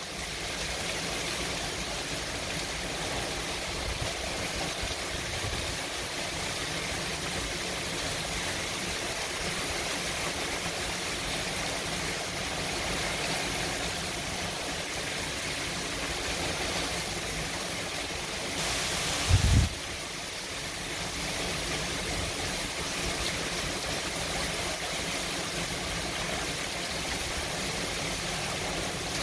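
Hurricane rain and wind: a dense, steady roar of driving rain with wind rushing through it. About two-thirds of the way through, a brief louder gust rumbles low.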